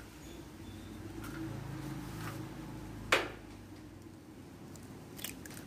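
Eggs being cracked into a nonstick frying pan: one sharp tap of eggshell on the pan about three seconds in, with lighter shell clicks near the start and again near the end, over a faint low hum.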